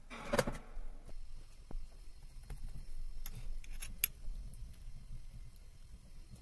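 A short rustling thump about half a second in, then a metal spoon clicking a few times against a glass jam jar.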